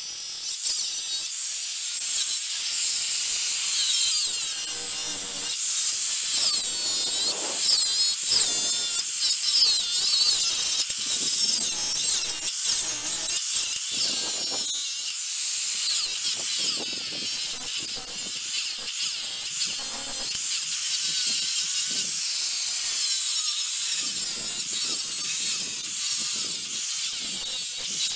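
Angle grinder grinding the steel of a snowmobile ski: a high-pitched whine that repeatedly dips in pitch and recovers as the disc is pressed into the metal and eased off, with a gritty grinding noise that swells and fades.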